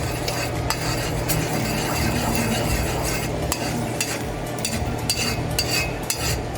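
Sugar browning in hot oil in a pot, sizzling steadily while a spoon stirs it, with sharp clicks of the spoon against the pot now and then.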